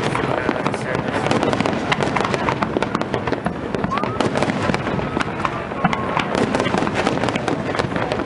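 Aerial firework shells bursting one after another in a dense barrage: a quick, unbroken run of bangs and pops.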